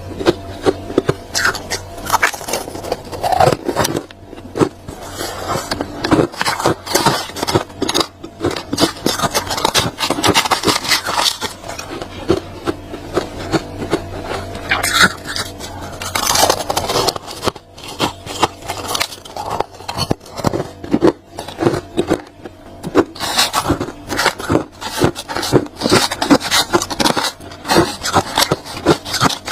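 Thick crunchy freezer frost being scraped: a dense, irregular run of crunching scrapes and crackles.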